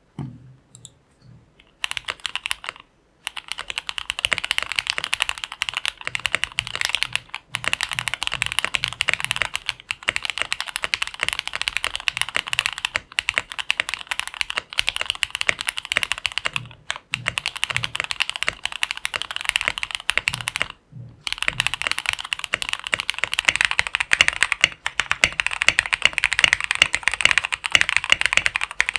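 Continuous fast typing on a mechanical keyboard: a dense run of key clacks that starts about two seconds in and breaks off briefly a few times.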